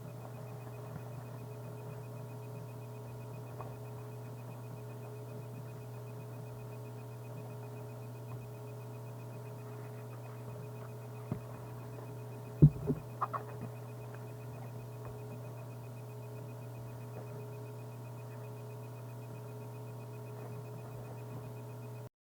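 Steady electrical hum with a few fixed higher tones over it. About twelve seconds in comes a short cluster of sharp knocks, after a single click a second before.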